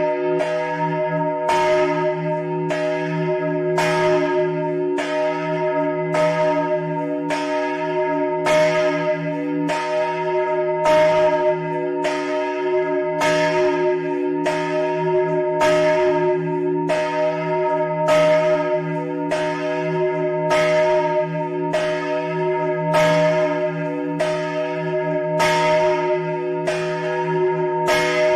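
Large E-flat church bell (the parish's biggest, recast by Capanni in 1952) swung high by hand on its rope and wheel, its clapper striking about once every three-quarters of a second in a steady, continuous peal, the deep hum ringing on between strokes.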